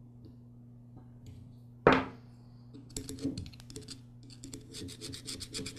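One sharp tap about two seconds in, then quick, rapidly repeated scratching and rubbing for about three seconds: a small tool working the bowl gasket out of the base of a lawn mower carburetor.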